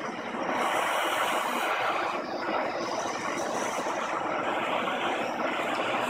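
Gas torch flame hissing steadily as it heats a battery terminal lug to melt the solder packed inside it.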